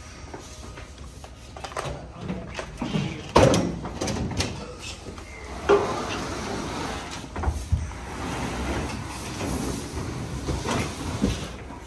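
Large cardboard box holding a heavy machine being pushed and slid across a pickup truck bed, the box scraping along with several knocks and thumps, the loudest about three and a half seconds in.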